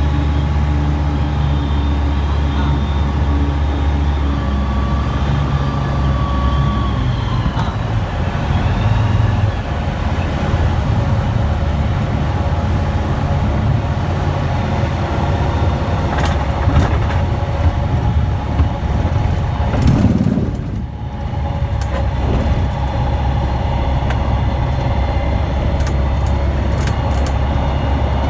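Aeroprakt A-22 light aircraft's engine and propeller running at a steady low drone, dipping briefly about three-quarters of the way through, with scattered sharp knocks and rattles in the later part.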